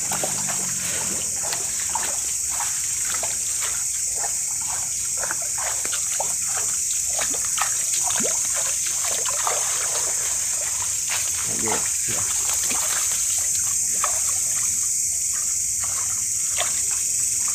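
Scattered small splashes and rustles of people walking through wet rice-field vegetation, over a steady high-pitched chorus of night insects.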